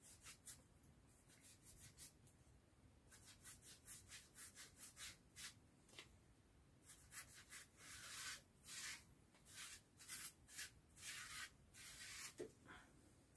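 A small sponge is brushed in quick repeated strokes over a latex-coated foam sword blade, dry-brushing silver paint on. It makes faint soft rubbing swishes, about two a second, that grow a little louder in the second half.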